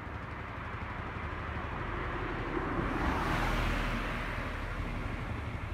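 A car passing close by: its road and engine noise swells to a peak about three and a half seconds in and then fades, over a steady low rumble of traffic.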